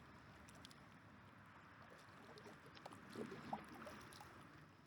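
Near silence on the water, with faint water sounds and a few soft ticks around a kayak about three seconds in.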